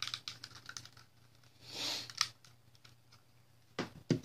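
Plastic parts of a Transformers action figure clicking and ticking as they are handled and worked, with a run of small clicks at first. A few heavier knocks near the end as the pieces are set down on the table.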